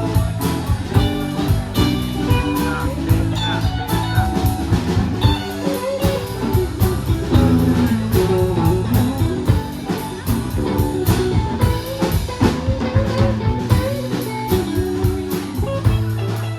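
A live blues-rock band playing an instrumental stretch: guitar lines with bent notes over bass and a drum kit keeping a steady beat.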